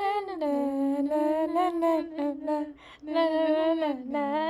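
A woman's voice humming a tune in long held notes, with a short break about three seconds in.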